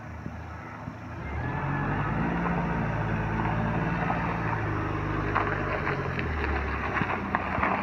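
Mahindra XUV500 diesel engine pulling the SUV up a rocky dirt slope in first gear without much throttle. The engine note rises about a second in and then holds steady under load. Tyres crunch over loose stones in the second half.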